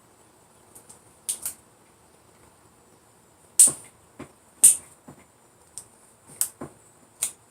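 Benchmade Mini Griptilian folding knife being opened and closed by hand on its AXIS lock: about nine sharp clicks at irregular spacing, the blade snapping open and locking, with the two loudest near the middle.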